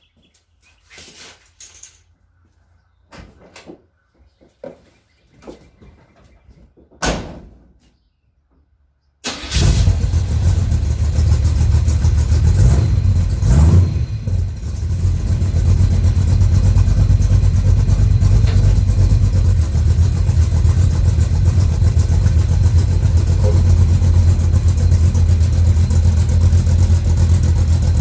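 Small-block Chevy V8 in a square-body Chevy C10 pickup, breathing through headers and glasspack mufflers, catching suddenly about nine seconds in. It rises and dips briefly a few seconds later, then settles into a steady idle. Before it starts there are only scattered light knocks and clatter.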